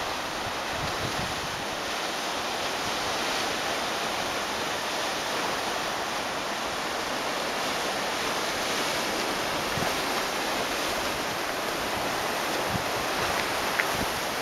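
Ocean surf washing steadily among the rocks of a rocky shoreline, an even, unbroken wash. A few faint low bumps of wind on the microphone.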